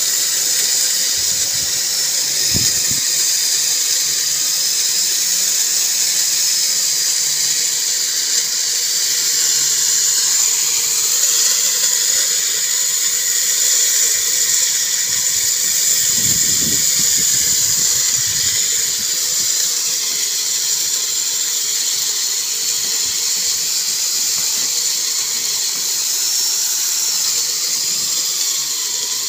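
Handheld electric core drill with a water-fed core bit boring into a rooftop slab: the motor runs at a steady high-pitched whine under load.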